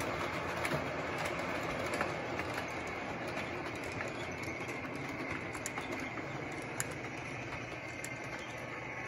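Two Williams O gauge NW-2 diesel switcher models, wired in series and hauling a nine-car train with four loaded coal hoppers along three-rail track. Their motors and gearing give a steady whir, with scattered sharp clicks from the wheels on the track.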